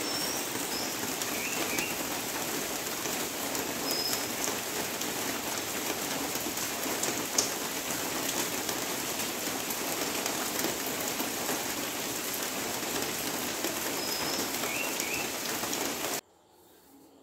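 Steady rain falling on palm fronds and garden foliage, with a few short bird chirps near the start and again near the end and one sharper tap about seven seconds in. The rain cuts off abruptly about a second before the end, leaving near quiet.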